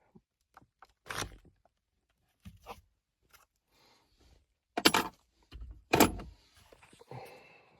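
Wiper switch being worked out of a Toyota RAV4's steering column with a pick: a handful of separate sharp clicks and knocks, the loudest two about five and six seconds in.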